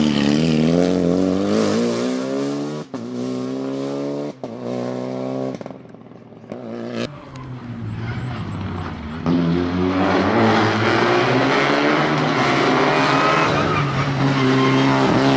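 Renault Clio Rally5 rally car accelerating hard, its engine pitch climbing, with short cuts at gear changes about 3 and 4.5 seconds in. The sound fades around the middle, then the engine comes back loud at full throttle for the second half.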